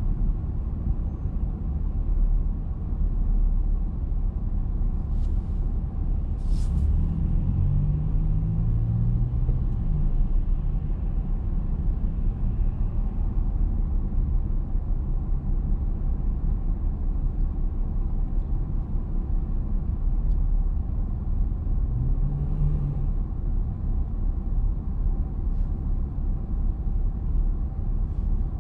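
Steady low rumble of idling traffic, with a city transit bus idling right alongside. A short sharp air-brake hiss comes about six and a half seconds in.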